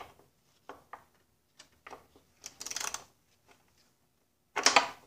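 Light metallic clicks and clinks of a socket wrench on a string of extension adapters being worked onto a fastener, with a short run of rapid clicking about two and a half seconds in and a louder clatter near the end.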